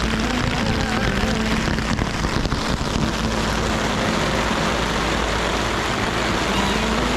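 An engine running steadily under a loud rushing noise, with a constant low hum that barely changes in pitch.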